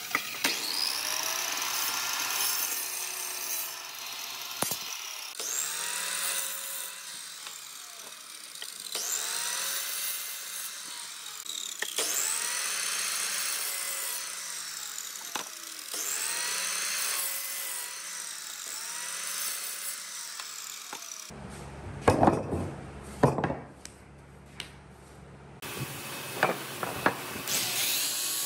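Sliding compound miter saw making about six cuts through a clamped stack of wooden blocks, its whine rising and falling with each cut, the blade noise loudest while it bites the wood. After that come a few seconds of loud knocks over a low hum, and near the end a power sander with a disc pad starts up.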